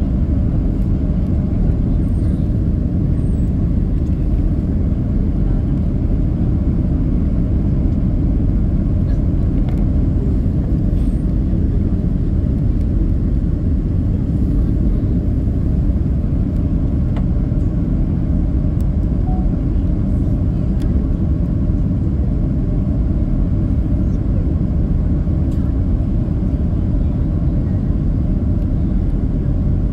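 Steady low rumble inside the cabin of a Boeing 767-300 airliner: engine and airflow noise, unchanging throughout.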